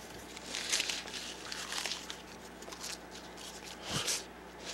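Small scraps of torn paper rustling and crinkling as they are picked up and sifted by hand, in several soft bursts, with a short, stronger breathy sound about four seconds in.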